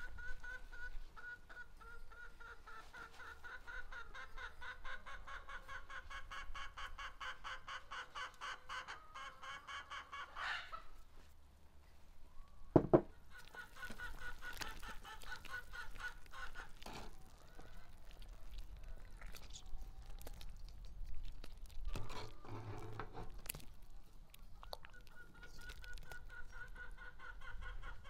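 Chickens clucking on and off in rapid pulsed runs, with one sharp knock about halfway through that is the loudest sound.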